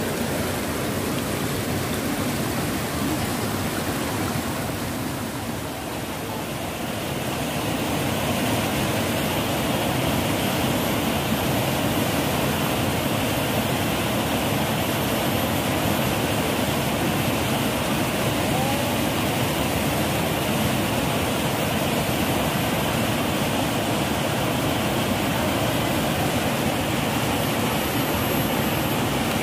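River water rushing steadily over rocks. About seven seconds in it gives way to a louder, fuller rush: the river swollen by rain, running fast through rapids.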